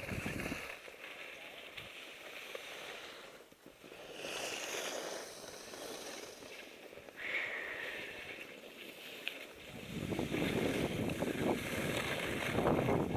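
Faint rustle of snow and clothing, then from about ten seconds in a rising rush of wind on the microphone as skis begin to slide over the snow.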